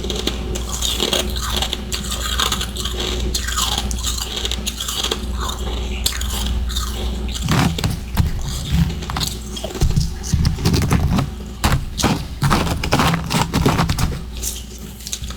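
Close-up biting and chewing of powdery humidifier freezer frost and ice chunks: a steady crackling crunch that turns into louder, sharper crunches about halfway through.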